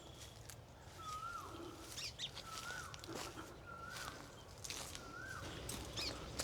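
A bird calls a short whistled note that rises and then drops, about four times at roughly one-second intervals. Higher chirps and scattered light clicks come in between.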